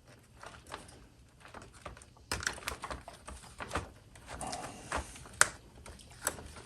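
Scattered small clicks and rattles of hands squeezing the retaining tabs on a Rock-Ola 449 jukebox button panel to pop its parts out, with a sharper click about five and a half seconds in.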